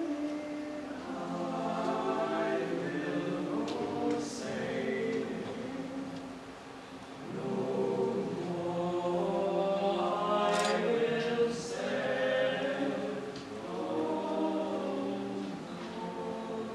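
A small group of young male voices singing a cappella in close harmony, in sung phrases with short breaks between them.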